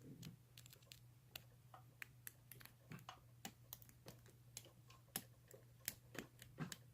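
Faint, irregular little clicks and ticks of a lock pick and tension wrench working the pins inside an old Yale padlock's keyway, over a low steady hum.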